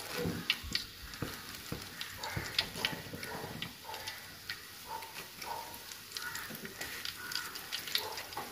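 Curry leaves crackling in hot coconut oil in an aluminium pot, with irregular sharp pops spread throughout.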